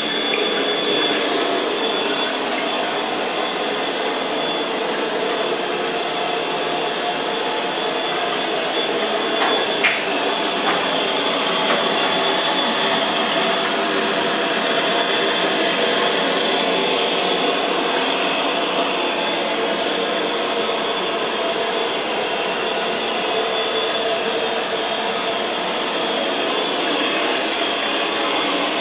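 Waterfall-spout faucet running in a steady stream into a vessel sink, with one brief click about ten seconds in.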